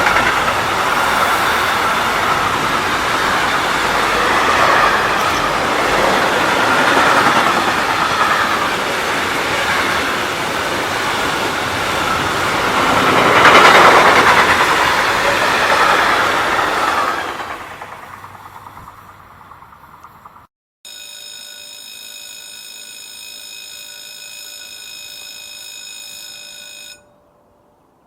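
A freight train passing close by: steady, loud rolling noise of wheels on rails with a faint squeal, loudest about halfway through, then fading away. After a sudden cut comes a steady hum with several pitches for about six seconds, which stops abruptly.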